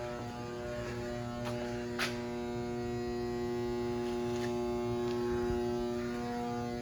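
Steady electrical mains hum with several evenly spaced overtones, with a few sharp clicks of footsteps on concrete about one and a half, two and four and a half seconds in.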